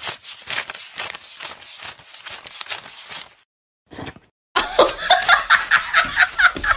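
A person laughing: soft breathy snickering at first, then after a short pause a louder run of laughter in quick rhythmic pulses, about four or five a second.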